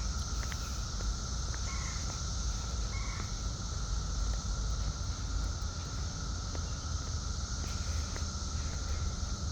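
A chorus of periodical cicadas holding a steady, unbroken drone, over a low rumble.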